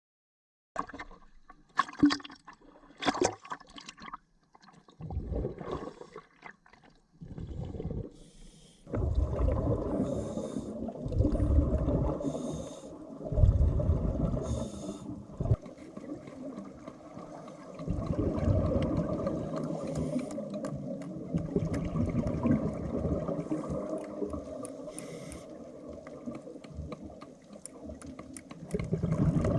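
Water bubbling and gurgling over a steady rushing drone, with scattered clicks in the first few seconds.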